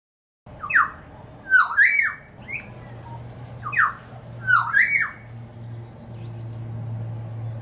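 Pied currawong calling: two bursts of gliding calls about three seconds apart, over a steady low hum.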